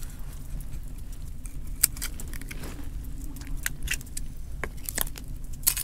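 Knife blade clicking and scraping against a scallop shell as the shell is opened: a scattered string of sharp ticks and scrapes over a steady low rumble.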